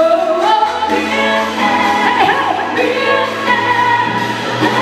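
Female pop singer singing live into a handheld microphone over a backing band, drawing out long held notes.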